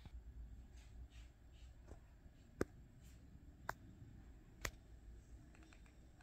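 Near silence: room tone, with three faint clicks about a second apart.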